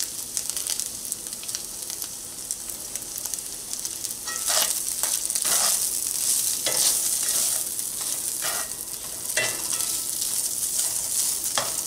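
Shredded pulled pork sizzling in hot oil in a cast-iron skillet while it is stirred with a spatula. Several short scrapes and knocks of the spatula against the pan come in the second half.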